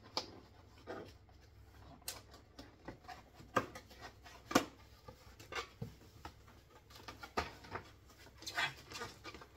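Irregular clicks, taps and scraping as hands work at the top of a large cardboard box to open it, with one sharper knock about four and a half seconds in and a brief rustling scrape near the end.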